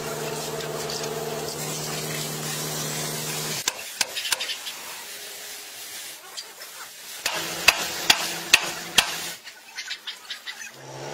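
Water from a hose hissing and sizzling on a red-hot iron wheel tyre as it is quenched, with several sharp knocks scattered through it. A steady motor drone runs for the first three seconds or so and comes back right at the end.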